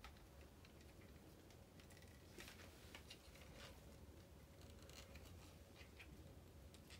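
Near silence with faint scattered clicks and scratches of hard plastic action-figure parts being handled, as the figure's hands are worked onto a toy motorcycle's handlebar grips.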